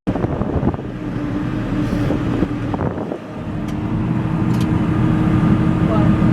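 A motor vehicle's engine running steadily, gradually growing louder over the second half, with a few faint clicks.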